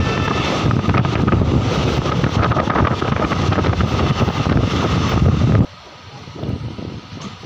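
Passenger train running at speed: wheel and track rumble with wind blowing hard across the microphone. About three-quarters of the way through it cuts off abruptly to a much quieter, lighter rolling sound.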